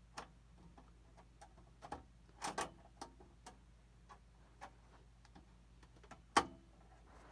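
Scattered light clicks and taps of hands working on computer parts inside a PC case while fitting a graphics card and its power connector. There is a cluster of louder knocks about two and a half seconds in and a single sharp knock near the end.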